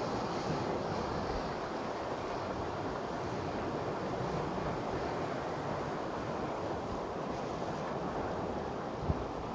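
Sea surf washing steadily along a rocky shore, with wind buffeting the microphone. A brief low thump sounds about nine seconds in.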